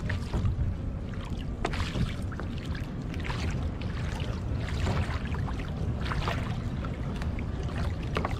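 Wind buffeting the microphone in a steady low rumble, with small waves lapping and slapping against the kayak's hull every second or so.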